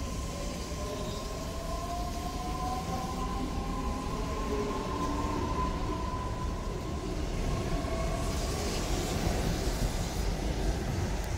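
EG2Tv Ivolga electric train running past along the platform, its wheels rumbling under a traction-motor whine. One whine holds steady while a second rises slowly in pitch as the train gathers speed.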